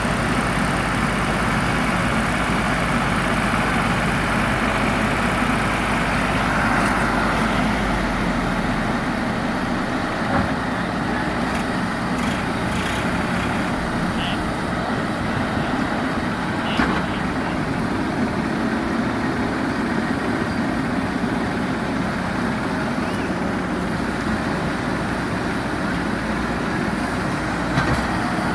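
Diesel engine of heavy machinery running steadily. A deep low drone in the sound drops away about nine seconds in.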